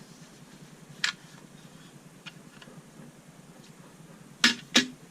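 A few sharp clicks of small hard parts being handled: one about a second in, two faint ticks in the middle, and two loud clicks in quick succession near the end.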